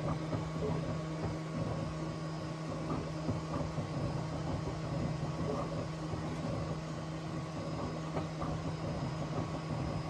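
Bambu Lab X1 Carbon 3D printer running a print while standing directly on a wooden desk: a steady hum with faint, irregular small ticks.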